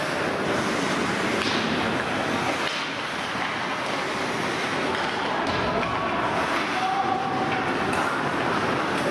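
Steady noisy din of a hockey game in progress, with a few scattered knocks.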